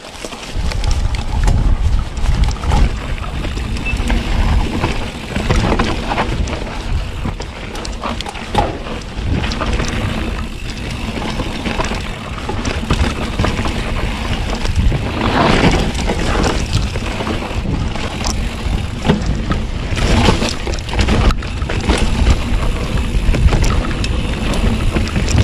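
Wind buffeting the action-camera microphone over the rumble of a Polygon Siskiu T8 mountain bike's tyres rolling fast down a dirt trail, with frequent knocks and rattles from the bike over rough ground.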